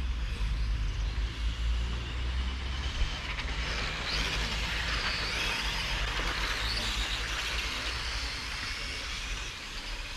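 Tamiya M-chassis electric radio-controlled cars racing past, their electric motors making a high whine that rises and falls in pitch and is loudest in the middle. A steady low rumble runs underneath.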